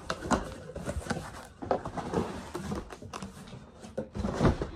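Cardboard shipping box being torn open and handled: irregular rustling, scraping and short knocks of cardboard.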